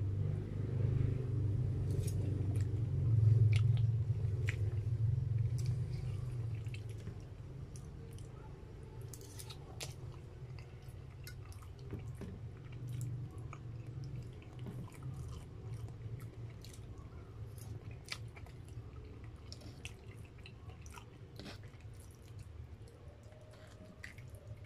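Close-up chewing of spaghetti, with many small wet mouth clicks and light clicks of a fork against a metal bowl, over a low hum that is louder for the first several seconds.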